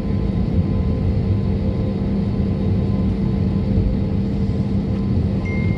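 Steady low rumble of an airliner's jet engines heard inside the passenger cabin before takeoff, with a constant hum running through it. A faint high steady tone comes in near the end.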